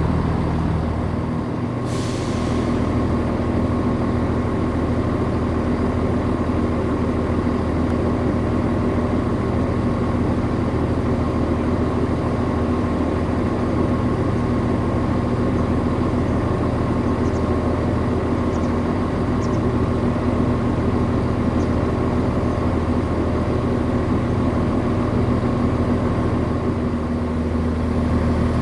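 Class 172 Turbostar diesel multiple unit arriving at a platform, its diesel engines giving a steady hum, with a short hiss about two seconds in.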